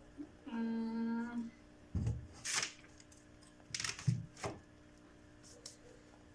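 A person hums one short steady note, then real firewood logs are set in place with two rounds of wooden knocks and brief scraping rustles.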